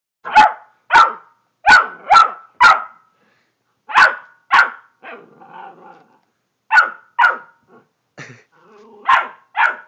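A young chocolate Labrador retriever barks in short, sharp bursts, about eleven barks in groups of two to five with pauses between.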